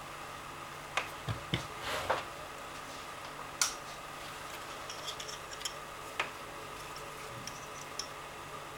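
A scattered series of short, sharp plastic clicks and taps from handling an LED dog collar, over a steady faint hum.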